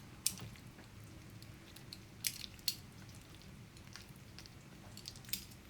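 Faint, scattered clicks and light scrapes of a kitchen utensil against pan and plate as saucy spaghetti and shrimp are picked up and plated, with a few clicks standing out.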